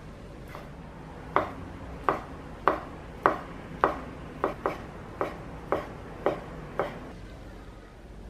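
Chef's knife cutting a thin egg crepe into strips and knocking down onto a wooden cutting board: about a dozen sharp chops at a steady pace of roughly two a second, which stop about seven seconds in.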